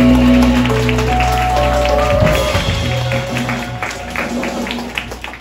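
Live band of electric guitar, electric bass, keyboard and drums playing the close of a tune: held notes and bass die away with scattered sharp drum and cymbal hits, the music growing steadily quieter.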